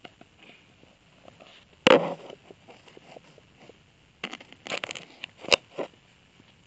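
Handling noises: a loud scrape or crunch about two seconds in, then a quick cluster of clicks, knocks and scrapes between about four and six seconds, with faint ticks in between.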